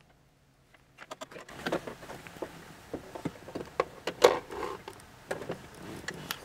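Irregular clicks and knocks of a short-throw shifter being worked down into place in a Fox-body Mustang's console, starting about a second in with a few louder knocks among them.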